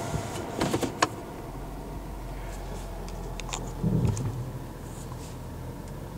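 Sharp clicks as the Ford Taurus SHO's console gear selector is moved into gear about a second in. Then a low steady hum inside the cabin as the car pulls away slowly, with a low thump about four seconds in.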